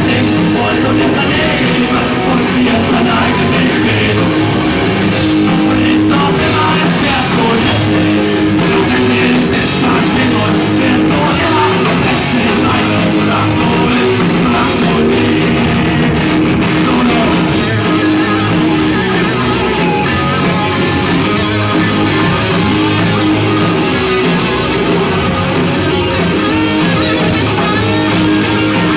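A rock band playing live: electric guitars and a drum kit at a steady loud level, with a lead singer on the microphone.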